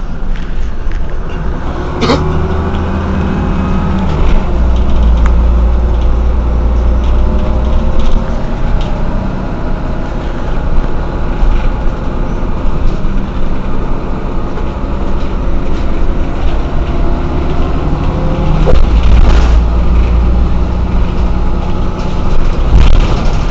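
Mercedes-Benz O 405 N city bus under way: its engine runs steadily, and the note rises twice, about two seconds in and again near the end, as it pulls. Loud low drone, with a few sharp knocks and rattles.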